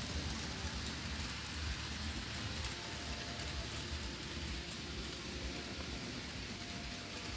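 N-scale model trains running on the layout: a steady rushing, rain-like noise of small wheels on rails, with a low, uneven rumble underneath.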